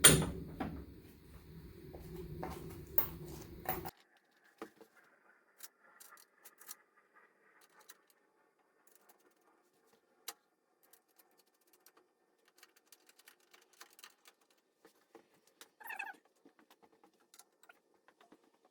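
Clatter and knocks of hand work on car parts, with a sharp knock at the start, cut off abruptly about four seconds in. After that come scattered faint clicks and a brief squeak about sixteen seconds in.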